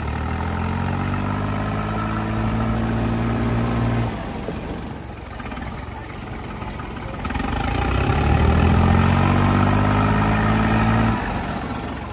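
Tractor diesel engine revving up and holding high revs, twice: the pitch rises at the start and holds for about four seconds before dropping, then climbs again about seven seconds in and holds before falling off near the end.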